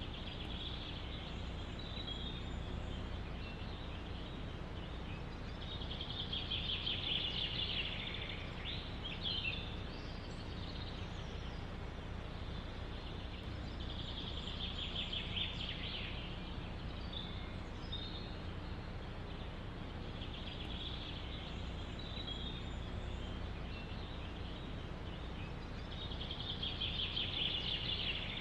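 A songbird repeating a short, rapid trilled phrase about every six seconds, with a few brief chirps between phrases, over a steady low rumble of wind.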